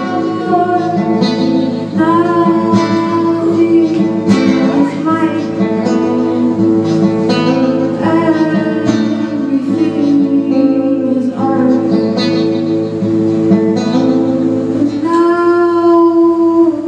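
Solo singer performing a song to a strummed acoustic guitar, the voice holding long notes over a steady strum.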